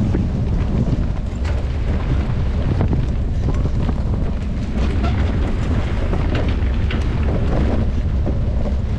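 Wind buffeting the camera microphone of a mountain bike being ridden at race speed: a steady low rumble, broken by scattered short clicks and rattles from the bike.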